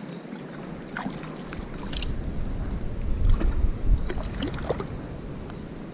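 Water sloshing and splashing in a shallow river, with small clicks, and a low rumble on the microphone that swells in the middle and fades again.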